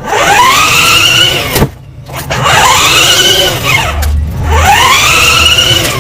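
A motor or engine revving three times, its pitch swinging up and back down each time with short breaks between.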